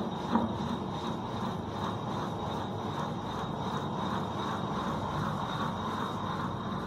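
Hand-turned chakki (rotary quern) grinding rice into flour: the upper millstone rubbing round on the lower one in a steady grinding rumble, with a faint even pulse from the turning. A short knock sounds just under half a second in.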